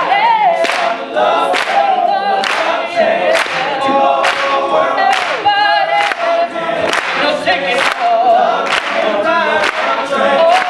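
All-male a cappella group singing live: a solo voice riffing with runs over the group's layered backing vocals, with a sharp regular beat of hand claps.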